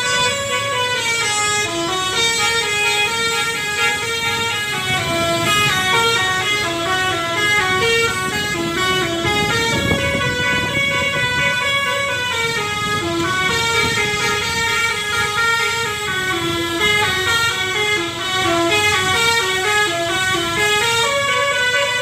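A bus's Basuri telolet horn, a multi-tone musical air horn, playing a melody: a continuous run of notes that step up and down. A low rumble sits under it about halfway through.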